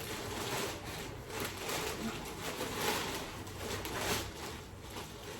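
Plastic mailer packaging rustling and crinkling in the hands as a clothing parcel is torn open and unpacked, with irregular crackly swells.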